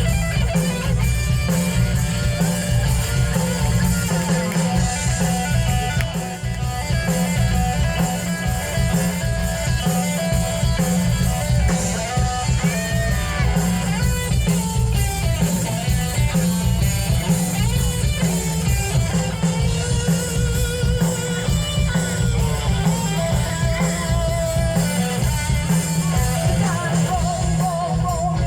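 Live rock band playing through a PA system: electric guitar, drum kit and a singer, with a heavy, steady low end.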